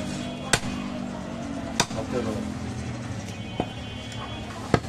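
Butcher's long knife chopping goat meat on a wooden log block: four sharp chops, a second or more apart. A steady low hum runs underneath.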